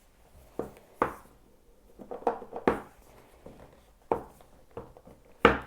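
Cardboard Apple Watch box and inner packaging being handled: a series of light taps, knocks and rustles, with sharper knocks about a second in, around the middle, and near the end.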